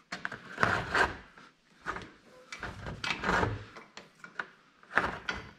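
Handling noise of hands and wiring being worked along a side-by-side's padded roll-cage tube: an irregular series of short rubs, scrapes and knocks.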